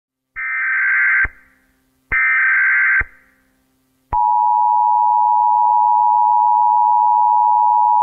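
Emergency Alert System tones: two bursts of SAME header data, each a harsh digital warble about a second long, then after a click the EAS two-tone attention signal starts about four seconds in and holds steady. A faint low hum lies underneath.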